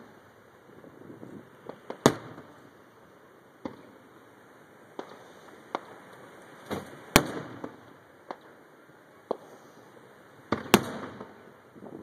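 Aerial firework shells bursting overhead: three loud booms about 2, 7 and 11 seconds in, each trailing off, with smaller pops scattered between them.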